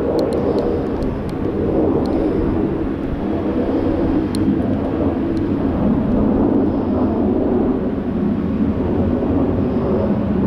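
Jet engine noise of two fighter jets flying overhead in formation: a loud, steady rumble.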